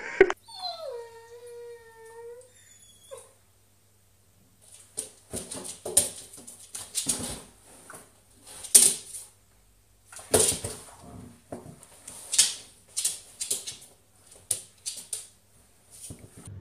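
A drawn-out high cry that drops in pitch and then holds for about three seconds. After a short quiet, a dog scrambles at and shoves its cushioned bed across a hard floor: an irregular run of sharp scuffs, knocks and thumps.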